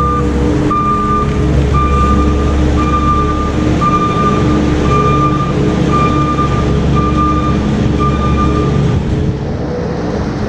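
A vehicle's reversing alarm beeping at one steady pitch about once a second over a running engine; the beeping stops about nine seconds in while the engine keeps running.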